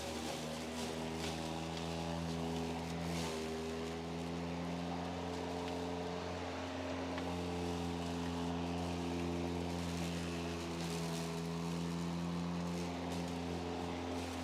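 Battery-powered lawn mower running steadily, its electric motor and blade giving a hum of several steady tones that shift slightly in pitch about three seconds in.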